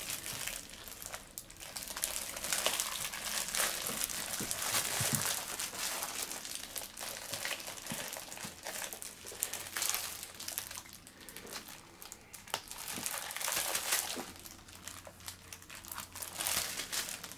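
Clear plastic wrap on Pokémon card binders crinkling on and off as the wrapped binders are handled and shuffled.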